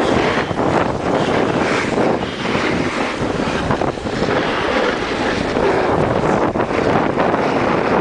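Wind rushing over the microphone of a camera carried downhill by a skier, mixed with the steady scrape of skis on hard-packed snow.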